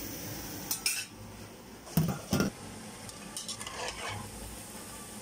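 A metal utensil knocking and clinking against a metal cooking pot and a plate, a couple of sharp knocks about a second in and two louder ones about two seconds in, with lighter clicks after. Underneath, the faint sizzle of pork belly deep-frying in oil.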